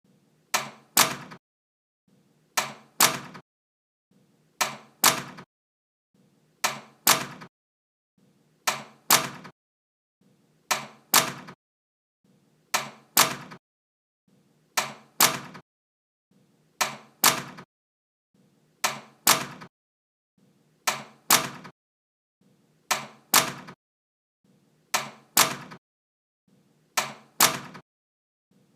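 A door closing, played over and over about every two seconds: each time a faint brushing sound, then two sharp knocks less than half a second apart, the second the louder.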